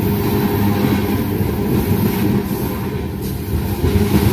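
Freight train of tank cars rolling past on the adjacent track: a steady, loud rumble of wheels and cars.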